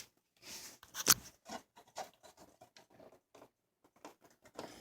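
Plastic engine cover being worked loose by hand: scattered light clicks, scratches and scrapes, with one sharper click about a second in.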